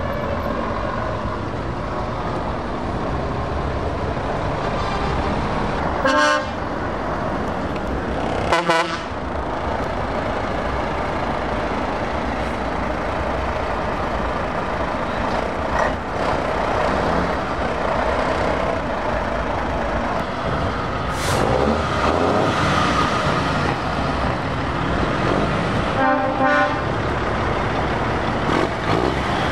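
Heavy trucks driving off, diesel engines running steadily. Short truck horn blasts cut through: two a couple of seconds apart, then another near the end.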